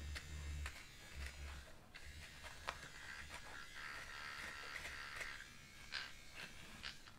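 Toy hair clippers shearing through a plush toy's shaggy synthetic fur: faint scraping and rustling with scattered small clicks, and a low buzz that comes and goes in the first second or so.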